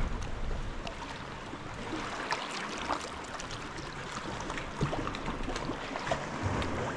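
Sea kayak paddle strokes: water splashing and dripping off the paddle blades, with many small scattered splashes over a steady wash of water.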